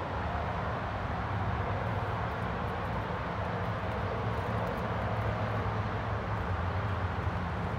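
Steady low engine drone with a constant hum.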